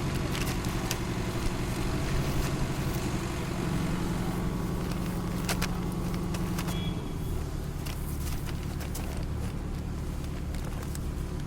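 A vehicle engine running steadily, its note shifting lower about seven seconds in, with a few sharp clicks.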